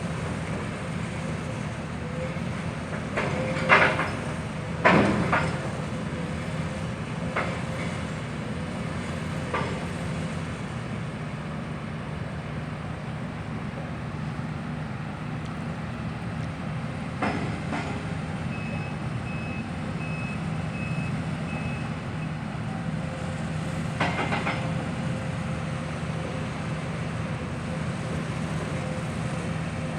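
Heavy demolition machinery running steadily, with a few sharp metallic knocks and clanks, the loudest about four and five seconds in. About two thirds of the way through, a backup alarm gives about six beeps.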